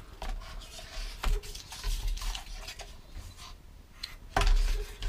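Handling on a desk: a wooden maul stick is lifted off and a sheet of watercolour paper is slid and turned on a cutting mat, rustling, with a few knocks. The loudest knocks come about four and a half seconds in.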